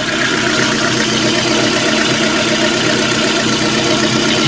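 Lada Granta FL's four-cylinder engine idling steadily soon after a cold start on fresh oil, running a little noisy while still cold.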